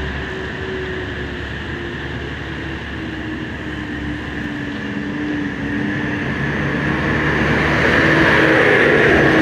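Slow, heavy road traffic with a large coach bus driving past close by, its engine running with a steady hum that drops a little in pitch. The sound grows louder near the end as the bus passes.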